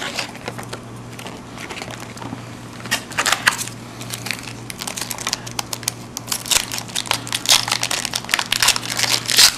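Plastic wrapping of a hockey card box or pack being crinkled and torn open by hand: irregular crackling, sparse at first and busier in the second half, over a steady low hum.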